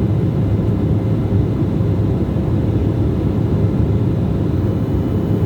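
Steady low rumble of jet engines and airflow heard inside an airliner cabin in flight, with a few faint steady tones above it.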